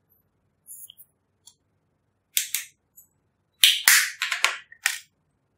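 Sharp clicks and cracking taps of a plastic eyeshadow compact as the pressed red eyeshadow is broken out of it. There are two about halfway through, then a quick run of about five near the end.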